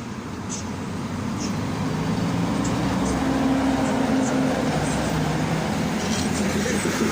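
A train running through the station, growing louder over the first few seconds and then holding steady, with a low hum and short faint high squeaks.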